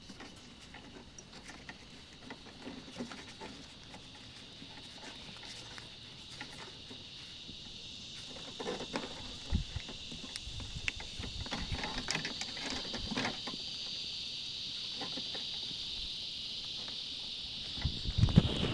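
Heat gun blowing steadily, a high hiss that slowly grows louder, as heat-shrink tubing is shrunk over soldered wire joints; scattered light clicks and taps of handling, with a few louder knocks near the end.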